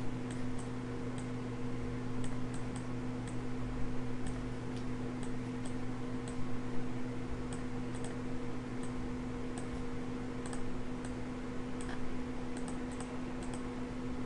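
Light, irregular clicking of a computer mouse, a few clicks a second, over a steady low hum.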